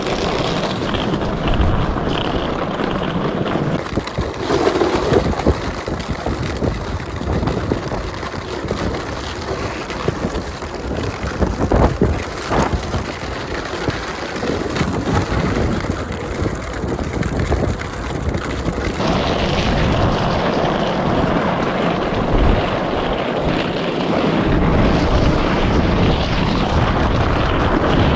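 Wind rushing over the microphone during fast skating across lake ice, with scattered scrapes and knocks from the skates and the towed sled.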